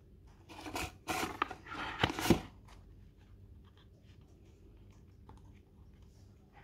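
Handling noise: about two seconds of loud rustling and scraping, ending in a sharp knock, as the jewellery box is moved and set down on a table. Then faint small ticks of fingers on a thin gold chain.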